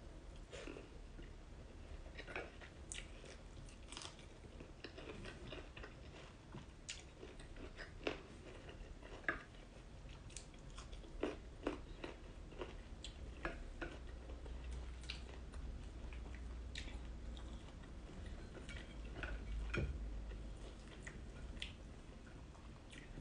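A person chewing mouthfuls of fish and rice, with scattered soft clicks and smacks of the mouth.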